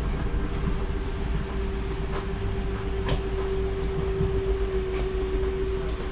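Electric slide-out motor of a Forest River Salem Platinum travel trailer running steadily as it extends the slide room: a low drone with a steady hum and a few faint ticks.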